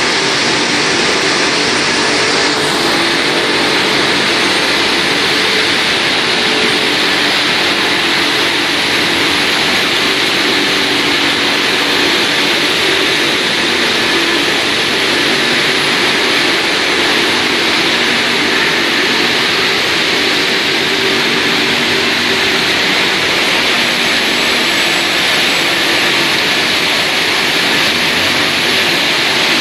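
Factory processing line for foil snack sachets running: a steady, loud rushing hiss of conveyors, motors and air, with a faint machine hum underneath and no breaks.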